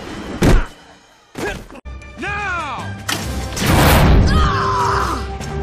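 Action-film sound effects: a hard thud about half a second in, another knock after a short lull, then a loud crash, with music underneath.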